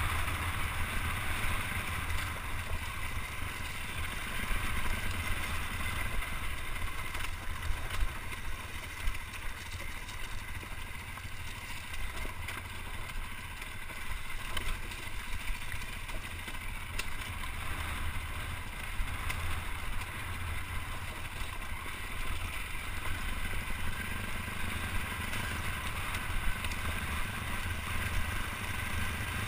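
Dirt bike engine running steadily at low speed over a rough rocky trail, heard on a helmet-mounted microphone with a heavy low rumble and scattered clicks and knocks.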